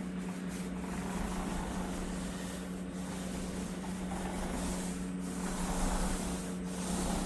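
Paint roller being worked over a wall: a steady rubbing hiss that breaks briefly every couple of seconds as the stroke changes direction, over a steady low hum.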